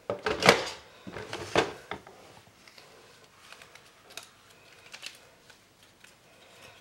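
Die-cut paper pieces being picked up and laid down on a card panel: light rustling, tapping and clicking of card stock, with a few louder clatters in the first two seconds and scattered faint clicks after.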